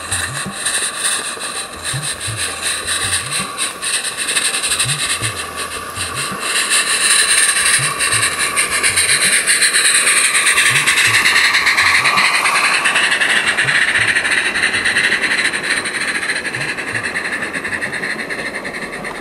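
A 16mm-scale live steam locomotive approaches and passes close by, its rapid exhaust beats and steam hiss mixed with the ticking of wheels on the rail joints. It is loudest as the engine goes past in the middle, with a falling sweep in pitch, and the coaches roll by after it.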